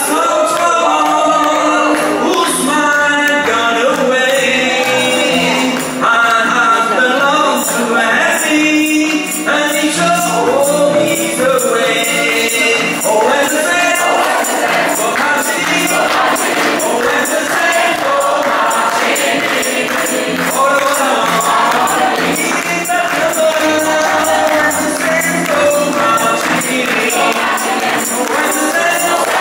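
Gospel choir singing in full harmony, with a tambourine shaken and struck in a steady beat.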